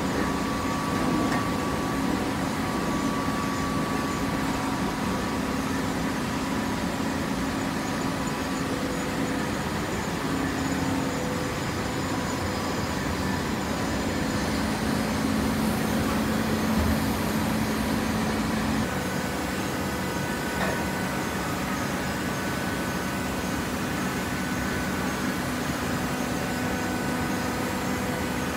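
TCM automatic horizontal hydraulic baler and its feed conveyor running steadily, with a constant motor and hydraulic-pump hum over mechanical noise; the hum's pitch shifts about two-thirds of the way through.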